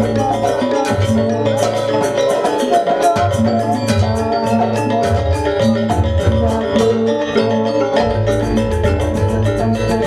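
Gamelan accompaniment for a Janger dance: fast, steady strokes on metal mallet instruments over drums and sustained low notes.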